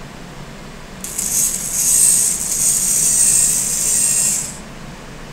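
VEX robot arm's motors and gear trains running as the arm drives through a joint move: a high whirring that starts about a second in and stops after about three and a half seconds.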